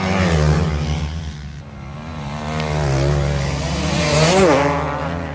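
Motocross bikes racing on sand, passing close one after another, their engines revving up and down as each goes by. The loudest pass comes near the end.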